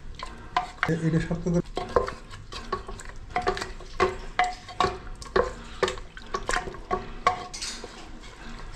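A wooden spatula stirring duck pieces in an aluminium pressure-cooker pot, knocking and scraping against the metal about two to three times a second. The pot rings briefly after many of the knocks.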